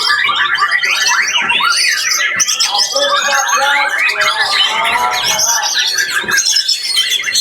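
Caged songbirds singing over one another in a dense chorus of fast trills, whistles and chattering phrases.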